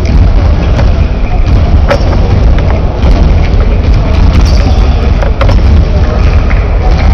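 Loud, steady low rumble of gymnasium room noise picked up by the camcorder, with a couple of sharp knocks about two seconds and five and a half seconds in.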